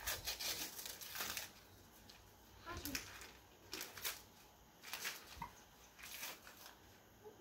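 Gift wrapping paper rustling and crinkling in several short bursts as a present is unwrapped by hand.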